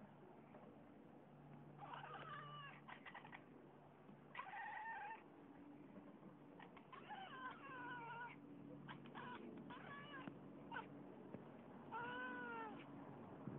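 Domestic cat chattering while hunting: quick runs of clicks and short warbling chirps, repeated in bursts of a second or so, the clicking sounds that the owner calls dinosaur-like.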